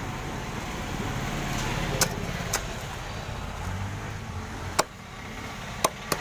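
Butcher's cleaver chopping a country chicken on a wooden log chopping block: about five sharp knocks at uneven intervals, two close together near the end. A steady low rumble of road traffic runs underneath.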